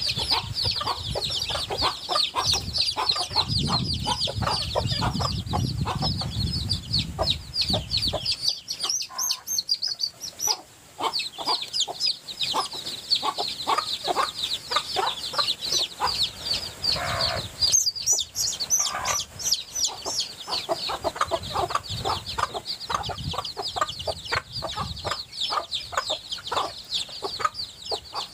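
Many young chicks peeping nonstop in quick, high chirps, with the mother hen clucking underneath.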